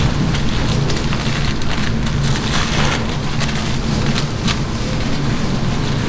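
Steady, noisy background of a busy food stall: a continuous low hum under a rain-like hiss, with scattered light crackles and clicks.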